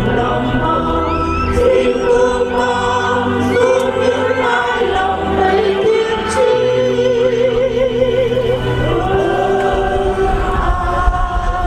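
A choir singing slow, long-held notes with music, one voice wavering in a wide vibrato a little past halfway.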